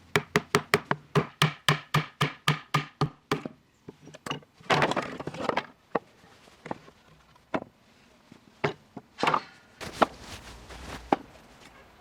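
Rapid run of about sixteen hard wooden knocks, about five a second, each with a short hollow ring, as a tool strikes the wooden cutting board. After a pause comes a brief rasping noise, then a few single knocks spread out.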